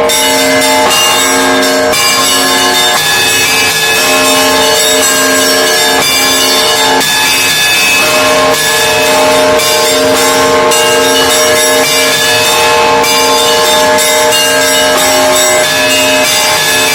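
Russian Orthodox monastery bells rung together in a continuous loud peal: many bells of different pitches struck in quick succession, with one mid-pitched bell repeating about once a second beneath them.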